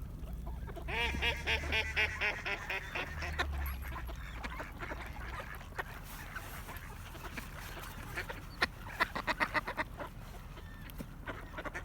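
Ducks quacking in fast runs of repeated calls, one starting about a second in and lasting a couple of seconds, another near the end.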